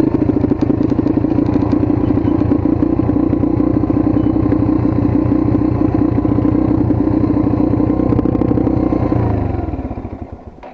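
Dirt bike engine running at a steady throttle, a fast even pulsing, then dropping in pitch and dying away near the end.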